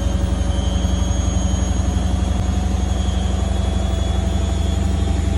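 Candy front-loading washing machine running at the start of a quick wash cycle: a loud, steady hum with a fast even pulse underneath.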